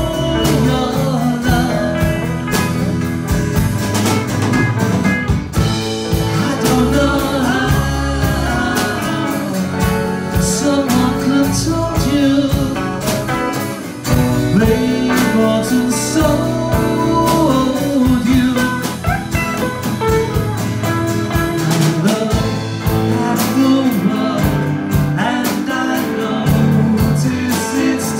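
Live band performing a song: singing over guitar, with a steady beat throughout.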